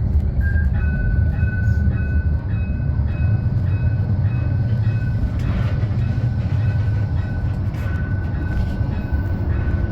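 Modern tram running, heard from inside the car as a steady low rumble. Over it a high beep repeats about twice a second through the first half, and a fainter, steadier high tone returns near the end.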